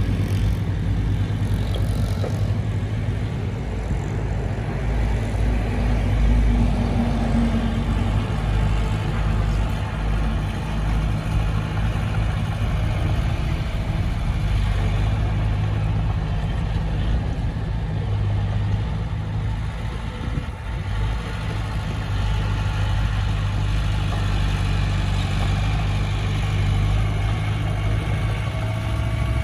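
Heavy diesel engine of earthmoving machinery running steadily, with a deep, even hum.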